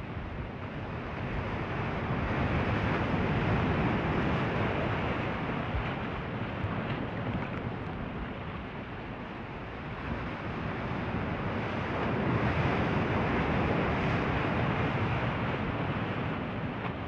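Ocean surf: waves breaking and washing in as a continuous rush that swells and ebbs, building twice to a peak and falling back between.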